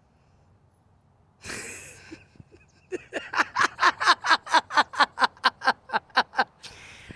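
A woman laughing: a sharp breath in, then a fast run of 'ha' pulses, about five a second, for three and a half seconds.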